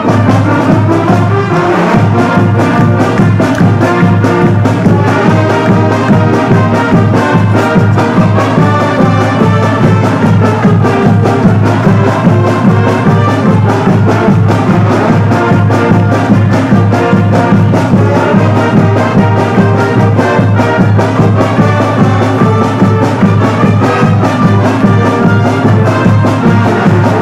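Marching band playing a tune: brass (trumpets, trombones, sousaphones) over a steady drum beat.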